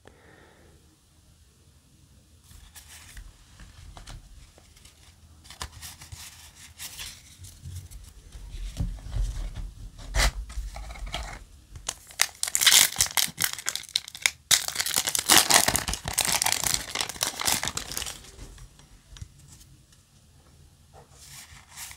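Foil wrapper of a Yu-Gi-Oh! booster pack being torn open and crinkled, loudest in two stretches about twelve and fifteen seconds in. Quieter rustling and handling of cards comes before it.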